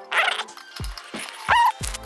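Background music with a beat: sharp drum hits over a deep bass that drops out and comes back near the end, and a short sliding pitched sound about one and a half seconds in.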